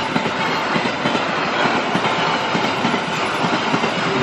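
Argo Bromo Anggrek express passenger train's coaches passing at speed close by: a loud, steady rush with a dense clatter of wheels over the rails.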